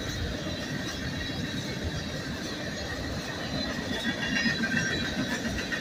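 Loaded coal hopper cars of a freight train rolling past, a steady rumble of wheels on rail with faint, wavering high-pitched wheel squeal.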